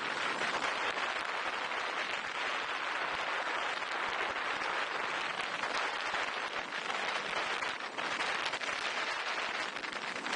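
Wind buffeting the camera microphone while riding an electric unicycle at speed: a steady, dense rushing hiss with fine flutter.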